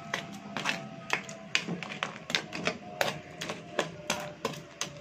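Metal spoon knocking and scraping against a stainless steel wok and the crab shells as crabs in coconut milk are stirred: irregular sharp clicks, two or three a second.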